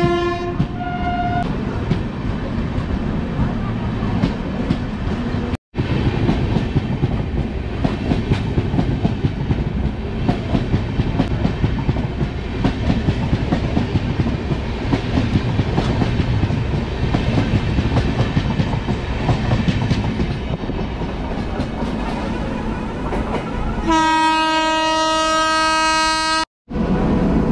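Indian Railways passenger coaches passing close by on the adjacent track, a steady rumble and clatter of wheels over the rails. A train horn sounds at the start and stops about a second in. Near the end an electric locomotive's horn blows steadily for about two and a half seconds and is cut off abruptly.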